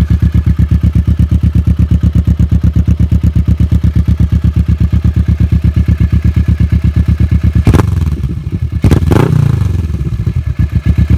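Motorcycle engine idling with a fast, even throb of about ten pulses a second, then revved twice, about eight and nine seconds in.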